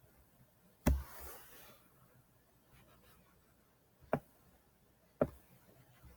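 Three sharp computer-mouse clicks a second or so apart, the first loudest and followed by a brief faint rustle.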